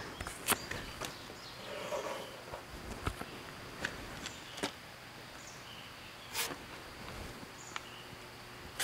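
Plastic body-filler spreader working filler onto a truck cab's sheet-metal pillar: light scraping, with scattered sharp ticks and taps about every second or so over a faint outdoor background.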